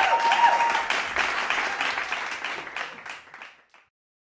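Audience applauding, the clapping fading away and ending a little under four seconds in.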